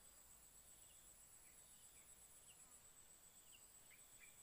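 Near silence, with a faint steady high-pitched insect drone and a few faint short chirps.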